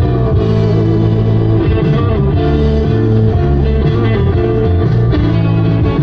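Music with guitar, playing at a steady level.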